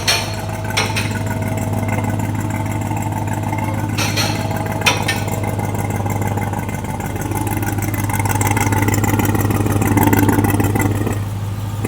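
Turbocharged V8 of a Ram TRX running, with the sound of it breathing through a turbo wastegate that is stuck open, which the owner suspects is held open by a piece of debris. A few sharp clicks come near the start and about four to five seconds in, and the engine gets louder from about eight seconds in.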